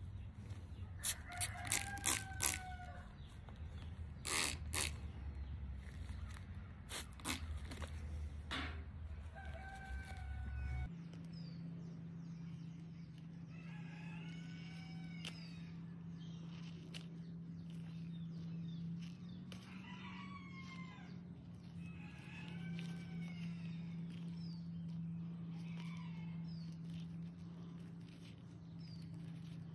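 A rooster crowing several times in the background, about three long arched crows in the second half, over a low steady hum. In the first third, a run of short sharp clicks and rustles from close handling.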